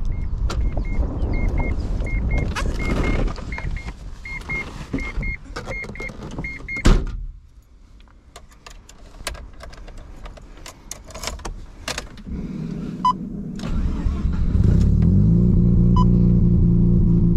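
Short electronic beeps in quick pairs sound over background noise until a sharp thump about seven seconds in, like a car door shutting. A few quiet clicks follow. About three seconds before the end, the Mazda RX-7's streetported 13B rotary engine fires, its revs rising briefly before it settles into a steady idle through a straight-pipe exhaust.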